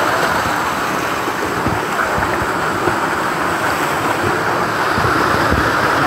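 Small waterfall splashing over rocks: a steady rush of falling water close to the microphone, with scattered low thumps.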